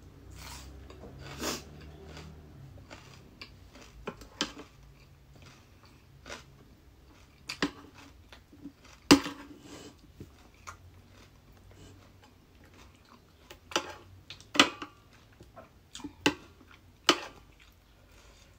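Close-miked chewing and crunching of raw vegetables and cucumber salad, irregular sharp crunches with the loudest about halfway through and several more near the end.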